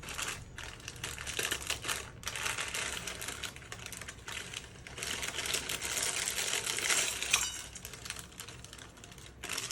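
Plastic wrapper of a Maggi instant noodle pack crinkling and crackling as it is torn open and handled, dense and rapid, dying down near the end.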